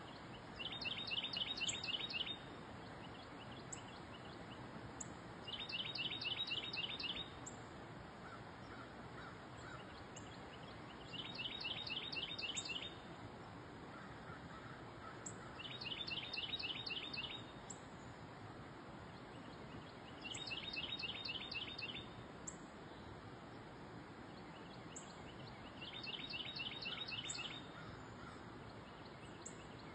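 A songbird singing a trill: a run of quick, even notes lasting about a second and a half, repeated about every five seconds. Underneath is a steady faint outdoor hiss, with faint, short, high chirps from another bird.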